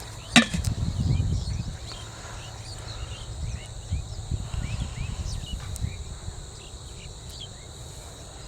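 Insects chirping steadily, with a sharp click near the start and irregular low thuds and rustling over the first few seconds.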